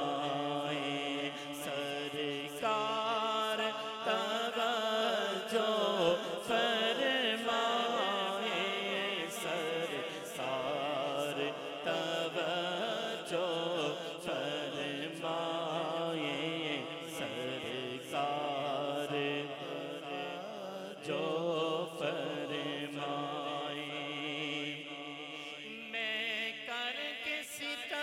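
A man singing an Urdu naat into a microphone, drawing out long wavering, ornamented notes with no break for words, over a steady low drone.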